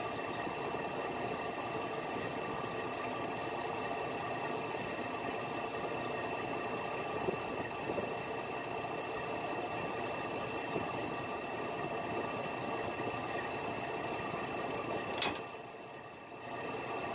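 Fishing boat's engine running steadily. Near the end there is one sharp knock, then the sound drops away for a moment and comes back.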